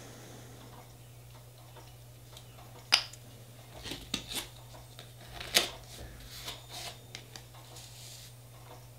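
Scattered clicks and taps of nail-stamping tools on a metal stamping plate as freshly applied polish is worked and picked up with a silicone stamper, the two sharpest clicks about three and five and a half seconds in.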